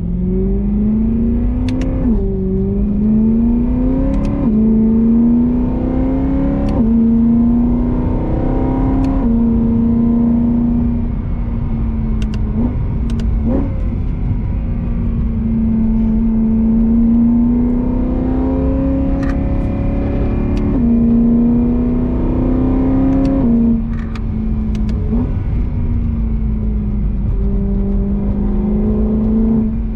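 BMW E92 M3's V8 engine driven gently through the gears: the engine note climbs slowly and drops sharply at each upshift, several times in quick succession near the start and twice more later, with a steady cruising note in between.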